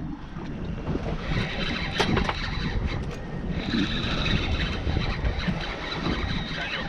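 Steady low rumble and wash on a small boat at sea, with a single sharp knock about two seconds in.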